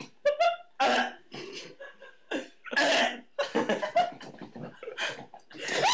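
A boy gagging and coughing in short bursts as he puts his hand into a bowl of cold mushy food, mixed with laughter.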